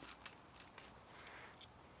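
Faint, scattered light clicks and snips of hand tools at work taking apart an electric motor.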